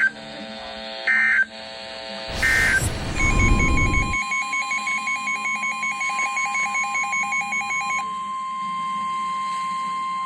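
Emergency Alert System audio on NOAA Weather Radio: three short buzzy bursts of SAME digital data about a second apart, marking the end of the previous message. Then a brief rush of static and a steady single-pitched alert tone, with a fast beeping alarm pattern of about four pulses a second over it that stops about eight seconds in while the steady tone carries on.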